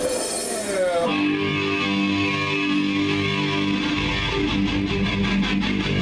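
Band guitar playing sustained, ringing chords after a falling pitch glide in the first second, with a low bass joining about four seconds in.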